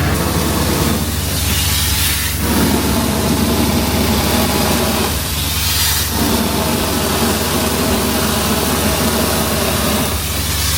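Ready-mix concrete truck's diesel engine running steadily. A hiss swells about two seconds in and again about six seconds in.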